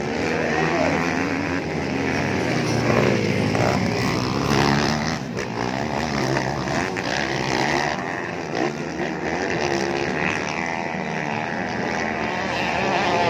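Several motocross bike engines racing round a dirt track, revving up and down in overlapping waves as the riders work the throttle and shift.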